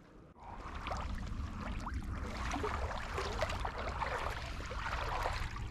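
Shallow water lapping and fizzing at the edge of a shelly sand beach, with many small crackles over a steady low rumble.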